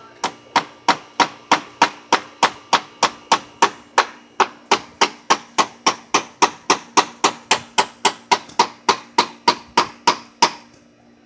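Hammer striking a wooden fence in a steady run of sharp blows, about three a second, that stops near the end.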